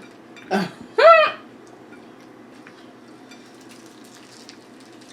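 A woman's brief high-pitched vocal exclamation, rising and falling in pitch, about a second in, just after a shorter vocal sound; then faint scattered clicks over a steady low background as they eat.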